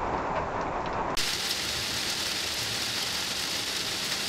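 Steady hiss of rain that turns abruptly brighter and fuller about a second in.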